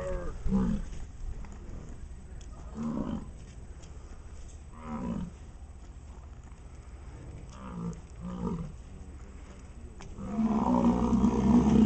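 American bison bellowing: a series of short, low calls spaced a few seconds apart, then a longer, louder bellow near the end.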